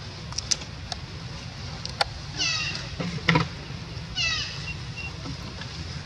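Long-tailed macaque giving two high, falling squeals about two seconds apart, with scattered clicks and a sharp knock between them.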